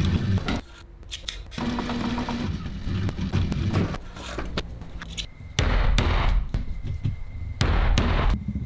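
Industrial cylinder-arm sewing machine stitching through layers of leather in short runs, the needle clattering rapidly. It stops and starts, with two louder runs of about a second each in the second half.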